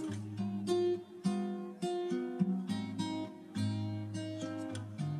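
Background music: an acoustic guitar playing a run of plucked notes, each ringing and fading before the next.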